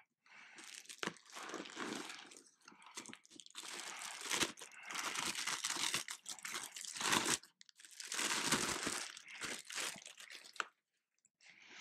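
Clear plastic bag crinkling and rustling in irregular bursts as it is handled and pulled off a radio transmitter, with a few sharp clicks among them; it stops about a second before the end.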